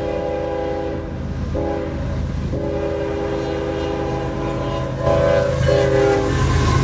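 Diesel freight locomotive's multi-chime air horn sounding several blasts of different lengths, long and short, with a low steady rumble of the train underneath.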